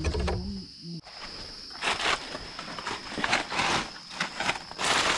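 Footsteps rustling and crunching through forest-floor litter, starting about two seconds in, as irregular crackles. Behind them a steady high-pitched insect drone.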